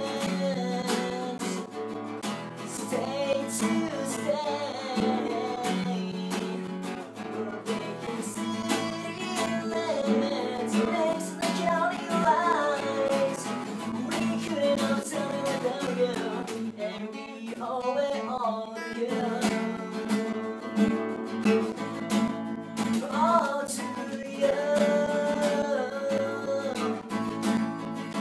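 Steel-string acoustic guitar strummed in a pop-punk song played acoustically, with a young man's voice singing over it.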